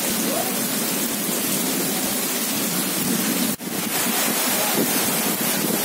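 Steady rain pouring onto a wet street, an even hiss that cuts out for an instant a little past halfway through.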